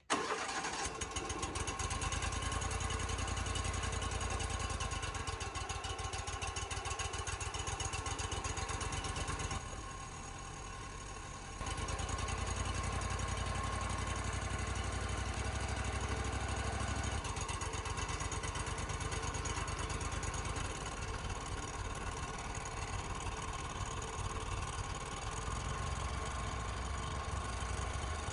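An engine running steadily, dropping briefly to a quieter level about ten seconds in before coming back up.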